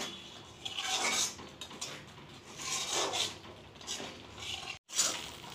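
Metal spatula scraping and stirring thick milk-cake dough (chhana with sugar and ghee) around a metal kadai, in rasping strokes about once a second. The dough is being worked until it comes away from the sides of the pan.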